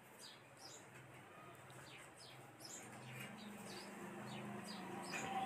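A small bird chirping over and over, faint, with short high falling chirps about twice a second.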